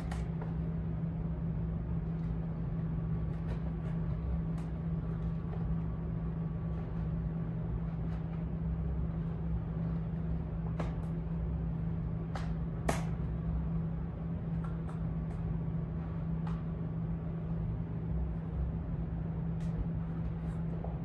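A steady low hum throughout, with scattered light clicks and knocks as cardboard packaging and a pistol-style CO2 launcher are handled on a desk; the sharpest knock comes about thirteen seconds in.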